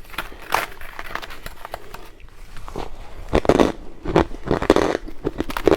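Crunchy biting and chewing of freezer frost, in irregular crackling bursts, the loudest about three and a half and four and a half seconds in.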